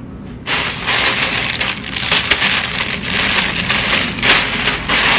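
Plastic packaging crinkling and rustling loudly as it is handled and torn open, starting about half a second in.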